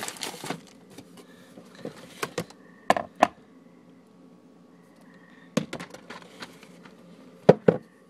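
Bottles and plastic food containers being shifted on a cupboard shelf, knocking and clicking against each other: a few sharp knocks, a pair about three seconds in and the loudest pair near the end.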